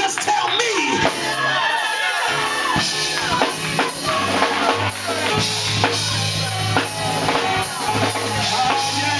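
Live band music: a drum kit hits snare and bass drum over a held low bass note, with other instruments on top.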